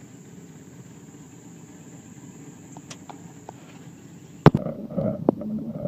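Insects droning steadily at a high pitch over a low rumble. About four and a half seconds in, the drone cuts off abruptly at a sharp, loud knock, followed by a few more knocks and clatter.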